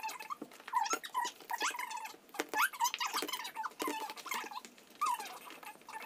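Thick slime being stirred with silicone spatulas in plastic tubs and worked by hand: short squeaks at irregular moments, roughly two a second, with sticky clicks in between.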